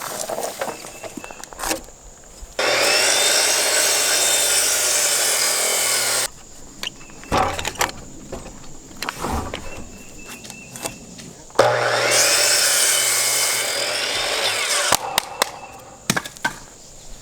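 Corded electric power saw cutting through wooden lumber twice, each cut lasting about three to four seconds, with knocks and handling clatter between the cuts.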